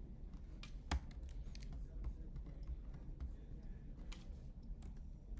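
Scattered clicks and taps of a computer keyboard and mouse, with one sharper click about a second in, over a low steady hum.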